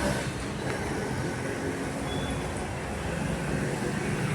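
Steady road traffic noise, an even rumble with no single event standing out.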